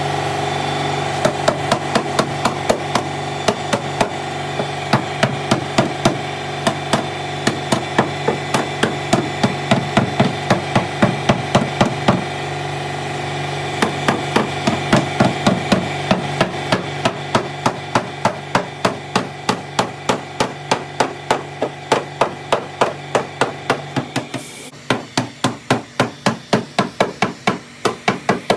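Hammer tapping repeatedly on sheet metal, about three even blows a second with a short pause midway, as in working a dent out of a car quarter panel. A steady hum runs underneath and stops a few seconds before the end.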